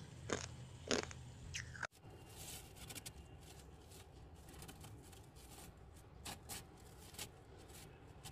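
Two loud crunches of freezer frost being bitten in the first two seconds. After that, fingers dig and press into loose, granular freezer frost with many faint crunches and crackles, a few louder ones near the end.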